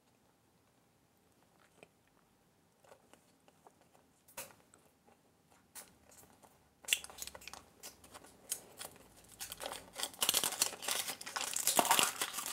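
Packaging of a toy surprise egg being handled and torn open: a few faint clicks, then from about halfway a dense crinkling and tearing of wrapping that grows louder toward the end.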